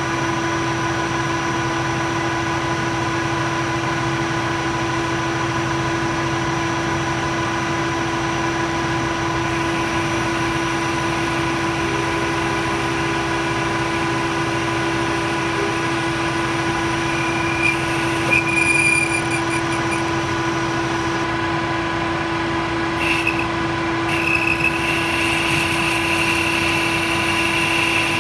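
Metal lathe running with a steady motor and gearing hum while a boring bar cuts inside the bore of a spinning workpiece. A higher whine from the cut comes in briefly about two-thirds of the way through and again near the end.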